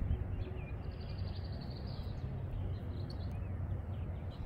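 A bird's fast, high-pitched trill lasting about a second, starting about a second in, over a steady low rumble of wind on the microphone.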